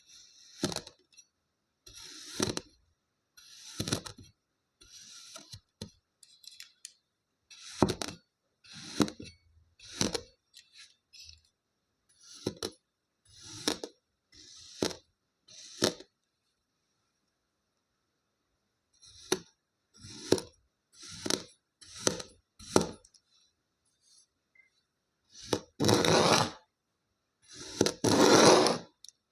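Kinetic sand being cut: a series of short crunchy scrapes, roughly one a second, with a pause of a few seconds midway. Near the end come three longer, louder crumbling scrapes.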